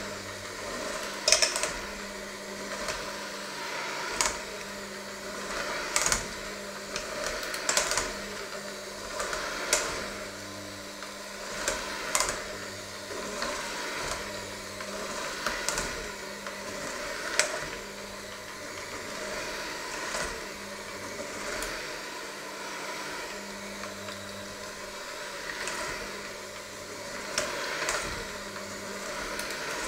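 Electric hand mixer running steadily in a bowl of dough. Every second or two there is a sharp knock as it strikes the stainless steel bowl.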